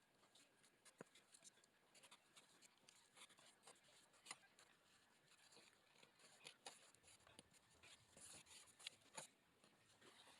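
Faint, irregular scratching and rubbing with scattered light clicks: hand work with sanded grout in the joints of a thin-brick backsplash.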